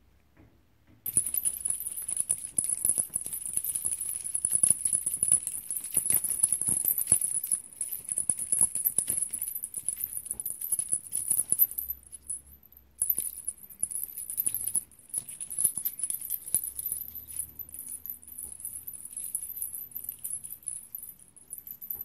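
A small jingling rattle shaken almost continuously, starting about a second in, with short breaks about twelve and fifteen seconds in.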